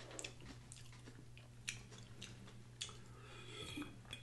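Faint close-miked mouth sounds of drinking from a small glass bottle: a few sharp clicks and soft swallows.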